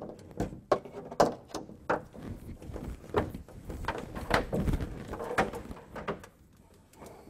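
Electrical cords and their plugs being pulled through a cord access hole in a grow box wall, rubbing and knocking against the panel in a string of irregular clicks and thumps that die down near the end.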